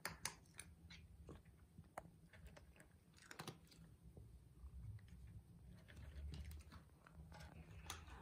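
Cat crunching dry kibble: faint, irregular crunches and clicks, with a low rumble underneath.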